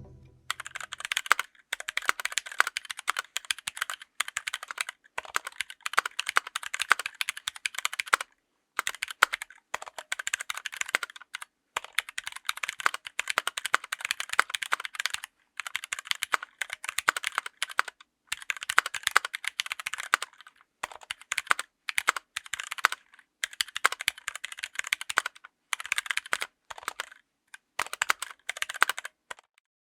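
Mechanical keyboard with stock Gateron Brown tactile switches, typed on quickly in bursts of rapid clicking, with short pauses about every two to four seconds.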